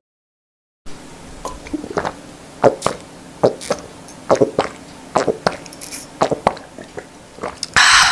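A series of short, sharp pops or smacks at irregular spacing over a faint hiss, ending in a brief loud burst of noise that cuts off suddenly.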